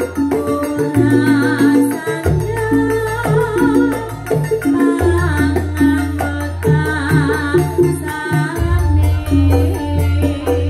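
Live band music played through a PA: a woman sings a wavering melody with vibrato into a microphone over keyboard with a steady bass line and percussion.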